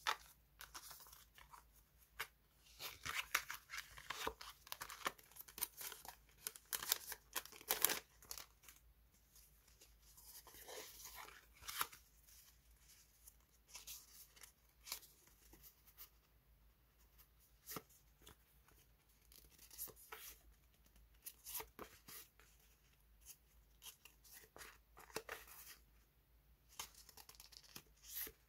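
Die-cut paper sticker cards and their plastic packaging being handled by hand: irregular rustling, crinkling and light paper taps, busiest a few seconds in, then sparser.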